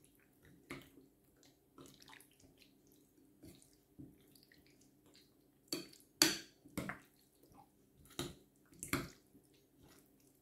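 A spoon stirring thick, creamy fruit salad in a glass bowl, making soft wet squelches in short bursts. They are loudest about six seconds in.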